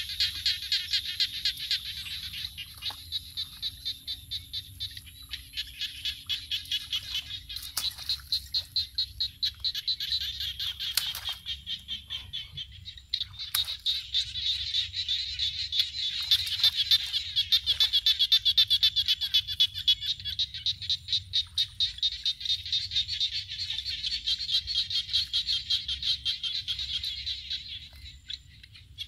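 A dense chorus of frogs calling, a high, fast chatter that pulses about three times a second and carries on without a break.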